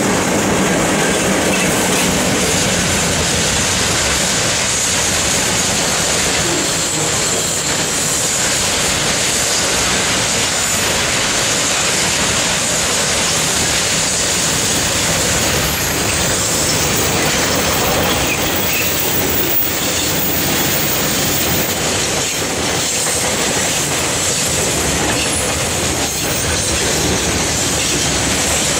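Freight train of container wagons rolling past close by behind KiwiRail EF class electric locomotives, a steady loud noise of steel wheels running on the rails.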